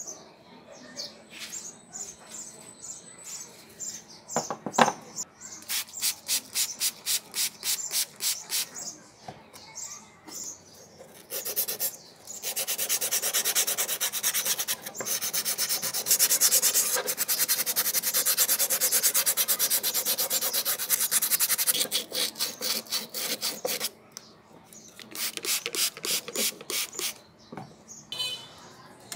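Hands rubbing over a rusty iron hammer head in bouts of scraping strokes: a few strokes a second at first, then a fast, steady run of rubbing for about ten seconds, then short strokes again near the end. A single knock about five seconds in.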